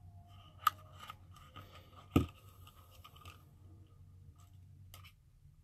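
Cosmetics packaging being handled on a tabletop: two sharp clicks about a second and a half apart, the second with a thump, with light scraping and rustling between them.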